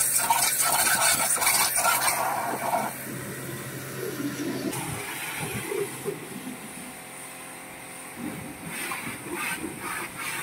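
High-pressure water jet from an electric pressure washer hissing against a car's tyre and wheel arch, with the washer's motor humming steadily underneath. After about five seconds the spray becomes softer and quieter as it plays over the bonnet and windscreen.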